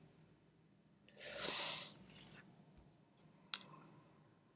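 Near silence broken by one short breath, a soft hiss-like exhale lasting under a second about a second in, and a single faint click near the end.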